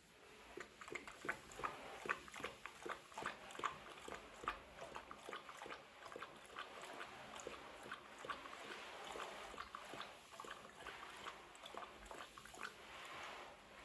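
A large dog chewing, a fast irregular run of small crunching clicks, several a second, loudest in the first few seconds.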